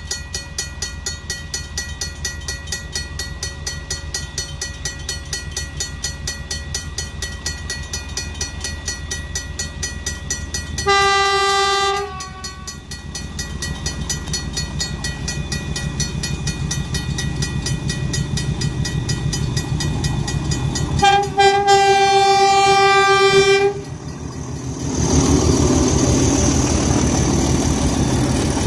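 DE-class diesel-electric locomotive DE 511 running with a steady, even engine beat. Its horn sounds twice: a short blast about eleven seconds in and a longer one of nearly three seconds about twenty-one seconds in. Near the end the engine grows louder, with a hiss over it.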